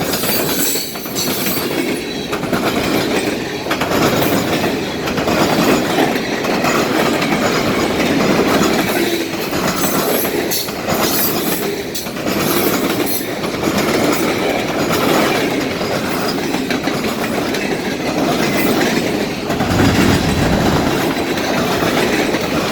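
Norfolk Southern freight train rolling past close by: a steady rumble of railcars with wheels clicking over the rail joints.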